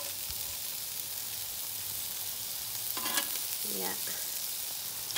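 Beef burger patties sizzling steadily on a hot grill as they are flipped with a metal spatula. A short voice-like sound comes about three seconds in.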